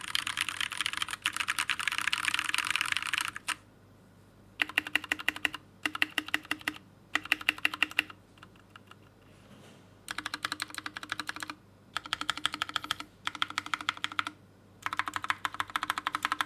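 Typing on a Pressplay Apollo 61 mechanical keyboard with freshly lubed Gateron Brown tactile switches. A fast unbroken run of keystrokes lasts about three seconds, then after a pause come several shorter runs of clicking keystrokes separated by brief gaps.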